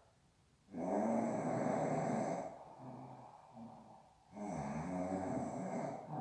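Snoring in a steady breathing rhythm: two long snores of about a second and a half each, with a quieter breath between them, and the next snore starting at the very end.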